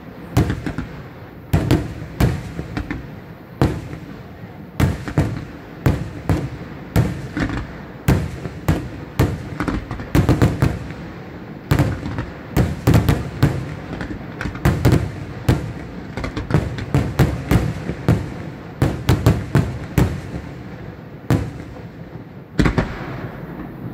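Aerial firework shells bursting in a dense barrage: sharp bangs several a second, irregular and overlapping.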